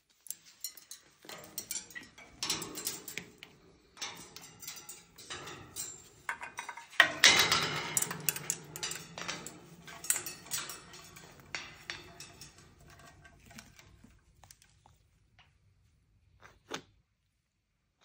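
Scarlet macaws clambering about a metal wire cage: irregular clicks and clinks of beaks and claws on the bars, with a louder scuffle about seven seconds in that dies away toward the end.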